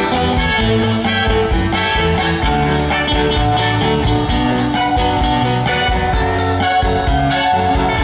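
Live band playing an instrumental break in a Mandarin pop song, with a steady drum beat under the melody.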